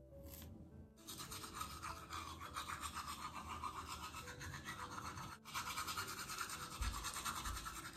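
A manual toothbrush scrubbing teeth with quick back-and-forth strokes, a wet rhythmic brushing that starts about a second in and pauses briefly about five and a half seconds in.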